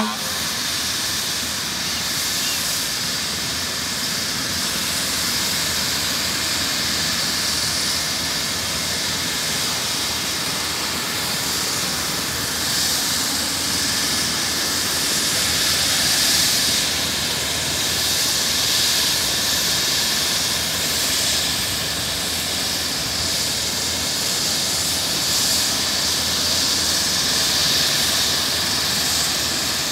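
Airbus H135 air-ambulance helicopter running on the ground ahead of lift-off: a steady turbine whine over a loud rushing hiss from the turning rotor, swelling slightly now and then.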